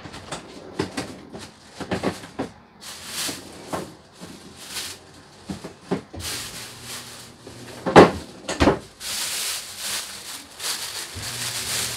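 Kitchen handling sounds: a string of clicks, knocks and clatter of cupboard doors, pots and utensils, broken by several short bursts of hiss. The loudest is a heavy knock about eight seconds in, with a second one just after.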